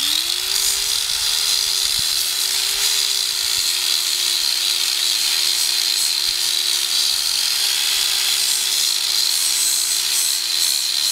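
Loud angle grinder switched on, spinning up over the first half second, then running at a steady pitch as it grinds down a horse's hoof.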